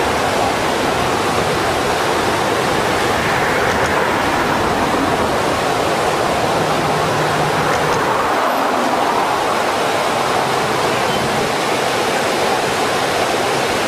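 Fast, muddy floodwater rushing in a flooded river channel: a loud, steady wash of turbulent water.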